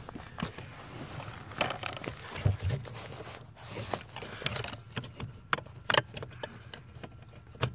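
Scattered small clicks, taps and light rubbing at irregular intervals as a new brake light switch is worked into its mount above the brake pedal.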